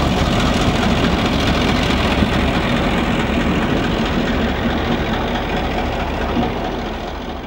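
NZR Da-class diesel-electric locomotive's EMD 567 two-stroke V12 diesel engine running steadily with a deep low rumble. It slowly fades as the locomotive moves away.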